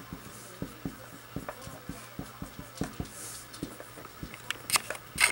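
Dry-erase marker writing on a whiteboard: light ticks of the tip against the board and soft scratchy strokes, with a few stronger strokes near the end.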